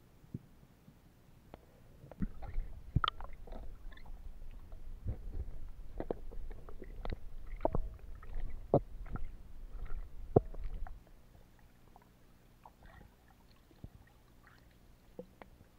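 Muffled underwater sound from a submerged camera as a diver swims with a speargun: a low rumble with a run of sharp knocks and clicks from about two seconds in to about eleven seconds, then only a few faint clicks.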